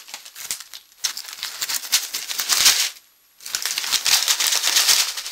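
Snack packaging being shaken and handled: a dry rattling, crinkling rustle in two stretches, with a brief pause about three seconds in.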